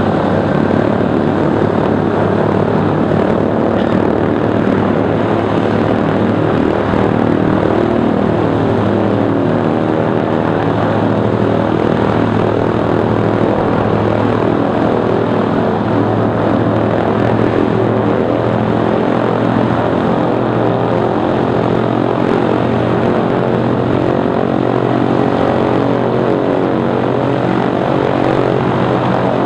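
Douglas DC-3's twin radial piston engines running steadily on the ground, propellers turning.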